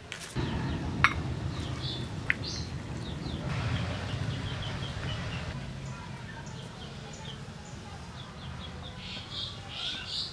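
Small birds chirping in quick, repeated high notes. Two sharp clinks about one and two seconds in, as green chillies are handled on a ceramic plate, and a low rustle through the first half.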